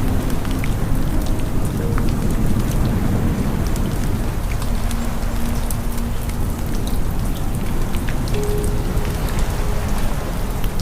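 Steady rain with a deep, even low rumble beneath it and many scattered sharp drop clicks.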